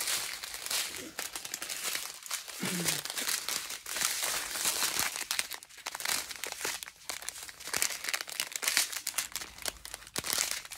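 Clear plastic bags of diamond-painting drills crinkling and rustling in irregular crackles as they are handled and sorted.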